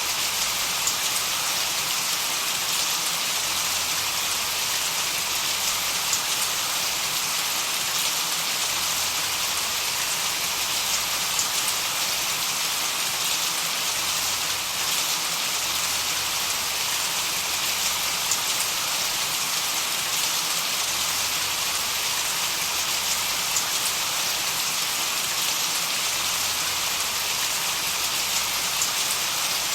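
Steady white-noise hiss, strongest in the high range, with faint scattered ticks sprinkled through it and no change in level.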